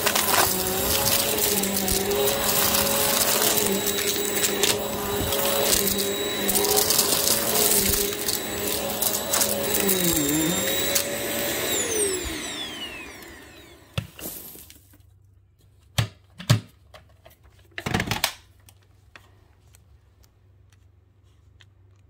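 Hoover upright vacuum cleaner running close over carpet, crackling as crunchy debris is drawn through it. About eleven seconds in it is switched off and its motor whine falls away as it spins down. A few scattered knocks and clicks follow in the quiet.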